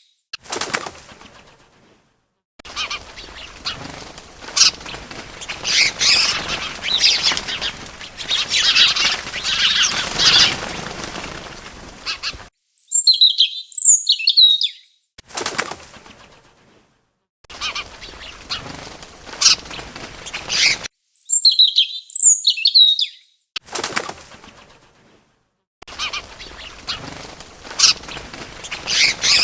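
Bird wings flapping in a string of separate stretches with abrupt silences between them, as if cut together, and twice the same short cluster of high chirps.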